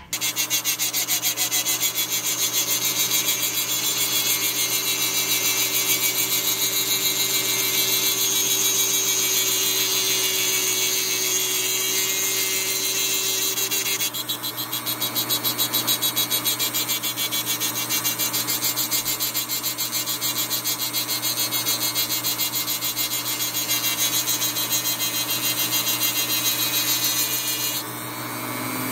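Dremel rotary tool running steadily while grinding, a continuous rasping whine with a fast fine texture. The sound shifts about halfway through and dips briefly near the end.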